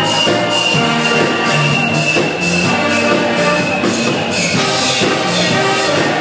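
Live band music with horns and drums over a steady beat.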